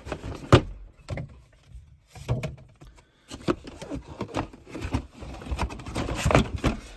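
Handling noises: irregular clicks and knocks of objects being picked up and set down, with a sharp knock about half a second in and a busier run of knocks in the second half.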